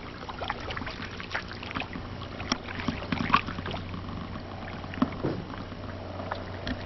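Canoe paddling: a paddle dipping and splashing in the water in irregular strokes, with a few sharper knocks.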